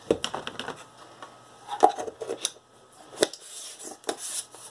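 Light clicks and taps of a plastic measuring spoon against a cardboard cornstarch container and its contents as half a teaspoon is scooped, levelled and tipped out. There is a quick run of small clicks at the start, a few sharper knocks after that, and a short rustle near the end as the container is handled.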